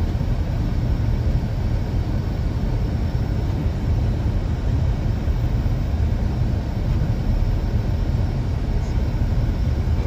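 Car cabin noise while driving: a steady low rumble of engine and tyres on a snow-covered road.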